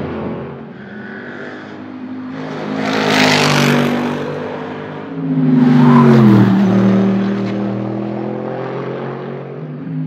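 Mercedes-Benz SLS AMG GT3 race car's naturally aspirated V8 running hard on track and passing close twice: once about three seconds in, then louder about six seconds in, its note dropping steeply as it goes by. Afterwards the engine settles to a lower, steadier note.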